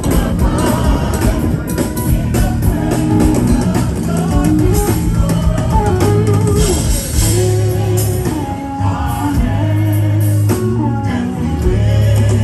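Live gospel band playing at a sound check, with singing over drums, bass and guitar.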